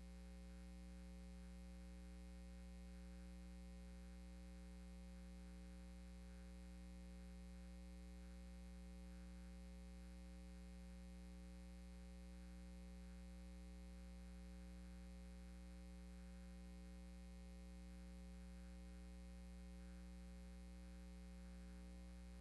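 Near silence with a faint, steady mains hum.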